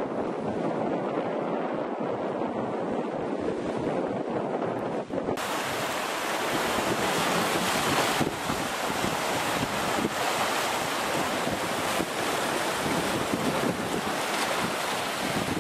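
Sea surf washing and breaking over jagged shore rocks, with wind buffeting the microphone. About five seconds in the sound changes abruptly to a closer, brighter rush of surf.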